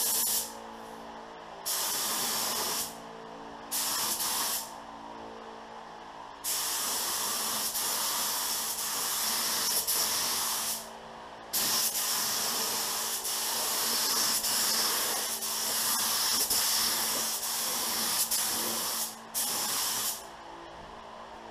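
Pro-Tek 4000 HVLP gravity-feed spray gun spraying clear coat at about 28 PSI: a hiss of atomizing air that starts and stops with each trigger pull, three short bursts of about a second, then long passes of several seconds, and a short burst near the end. A steady low hum runs underneath, heard in the gaps between passes.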